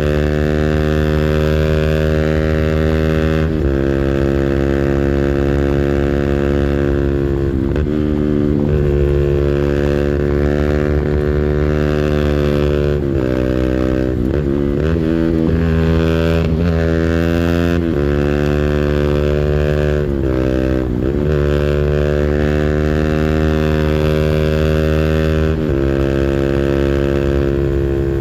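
200cc engine held at high revs on its rev limiter, steady and loud. Several times in the middle the revs drop briefly and climb back up to the limiter.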